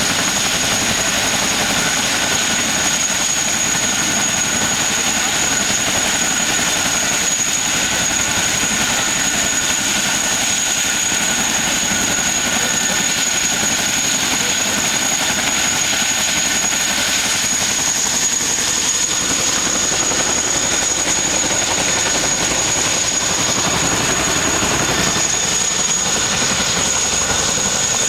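HVAC unit running: a loud, steady whir with a constant high-pitched whine and a fainter steady tone beneath it.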